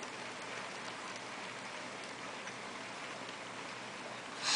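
A long Lego train with four motorized engines running along its track: a steady rattling noise of many wheels rolling over the track, with faint scattered ticks. A brief, louder rasp comes near the end.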